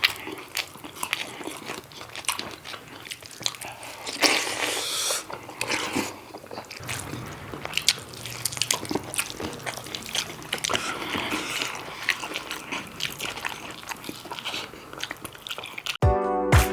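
Close-up eating sounds: people chewing and biting into pork curry and rice, with irregular wet clicks and smacks.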